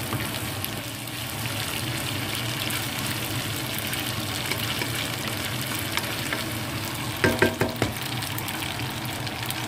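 Spaghetti, chicken and peppers sizzling in a hot frying pan while being stirred and tossed with a wooden spatula: steady frying with light scraping. A short pitched sound comes about seven seconds in.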